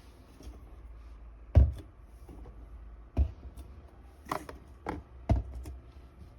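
A handful of short knocks and clicks from something being handled, five in all. The first, about a second and a half in, is the loudest; the others follow more closely near the end.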